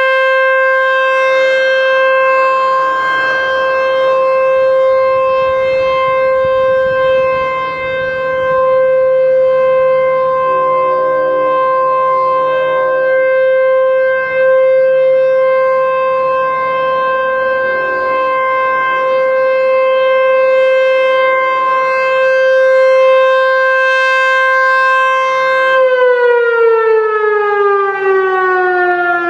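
ASC T-128 rotating electromechanical warning siren sounding a steady single-tone alert signal, its head turning on the pole. Near the end the pitch starts to fall as the siren winds down.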